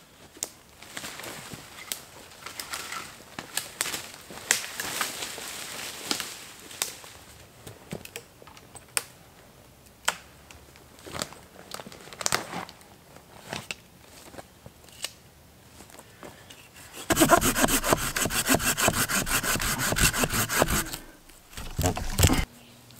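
Footsteps and rustling on a forest floor of pine needles and twigs. Near the end, a hand saw cuts a small fallen sapling in loud, rapid back-and-forth strokes for about four seconds, stops briefly, then gives one more short burst.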